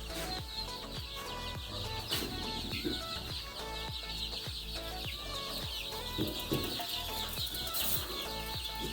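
A flock of 30-day-old Sonali chickens peeping and clucking steadily, many overlapping short high calls.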